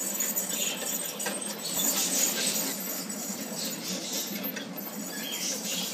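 Small pet rodents scuffling and tussling in wood-shavings bedding, with uneven rustling and a few short high squeaks near the end.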